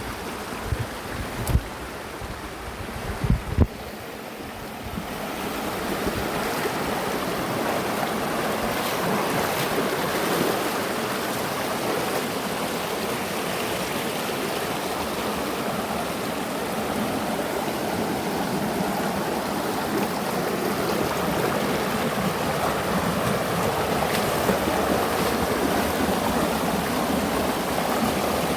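River water rushing steadily, growing louder about five seconds in. A few low thumps in the first seconds.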